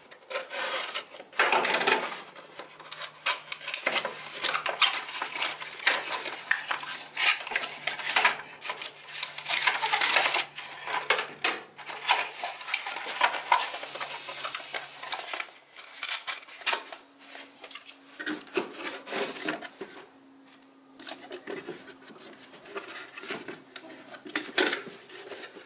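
Irregular clinking, clicking and rubbing of small metal engine parts and hand tools handled on a wooden bench, along with cardboard parts boxes being opened and moved, as piston rings are readied for fitting. The handling is busiest in the first half and thins out later.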